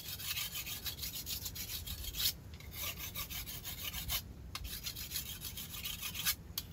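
Knife blade shaving and scraping a piece of wood in quick, repeated strokes.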